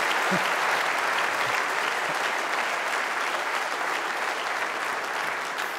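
A large audience applauding steadily, with a few voices calling out. The clapping starts to die away near the end.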